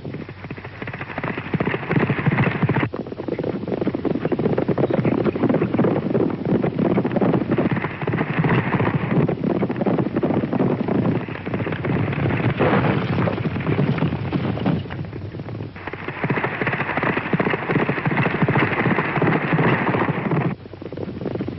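Horses galloping hard: a loud, dense drumming of hooves.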